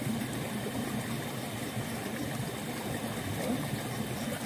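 Shallow water sloshing and splashing as bare feet wade and a hand net is swept through a muddy ditch, a steady even rush of churned water.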